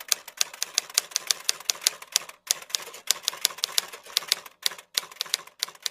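Typewriter sound effect: rapid keystroke clacks, about five a second with two short breaks, sounding as the on-screen text types itself out.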